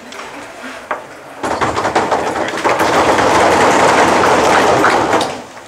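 Drum roll: rapid, dense drum strokes starting about a second and a half in, holding for about four seconds, then fading away near the end.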